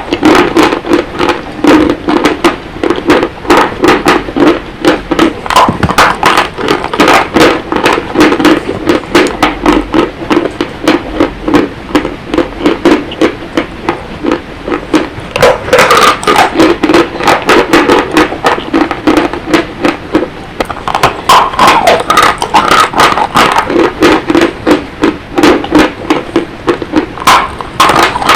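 Loud, dry crunching of mountain chalk being bitten and chewed close to the microphone: a steady run of sharp crackling crunches, several a second, throughout.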